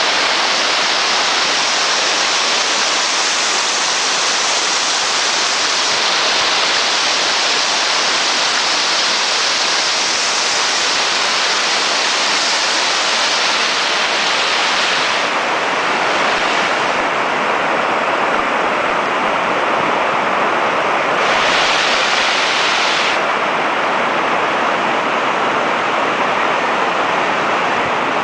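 Valul Miresii waterfall: a steady, dense rush of falling water. Its hiss dulls about halfway through, brightens again for a couple of seconds, then dulls once more.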